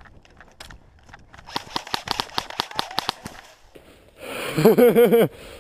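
Airsoft gun firing a rapid burst of about eight shots a second for under two seconds. About a second later comes a loud yell whose pitch wavers up and down rapidly, the loudest sound.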